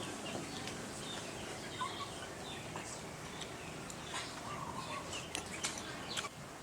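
Birds calling in short chirps over a steady outdoor background, with scattered short clicks.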